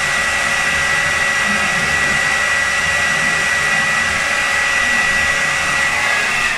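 Hair dryer blowing steadily with a high whine while hair is blow-dried upward for volume for a quiff. It is switched off abruptly at the very end.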